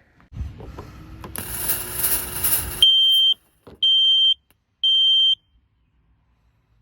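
Kidde smoke alarm sounding its three-beep pattern: three piercing high beeps of about half a second each, roughly a second apart, the standard signal for smoke detected. Before the beeps comes a hiss that grows louder over about two seconds and then cuts off.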